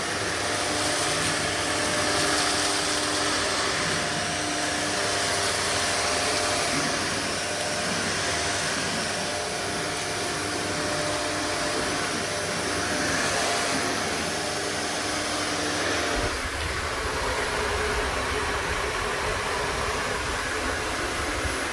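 Shark DuoClean AZ910UKT corded upright vacuum cleaner running in hard-floor mode, sucking Rice Krispies off a hard floor: a steady rush of air and motor hum. About three-quarters of the way through, the hum's tones fade and a deeper rumble takes over.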